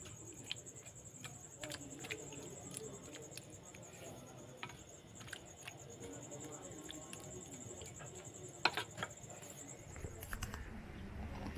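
An insect's continuous high-pitched trill, finely pulsing and steady, that cuts off near the end, with scattered faint clicks.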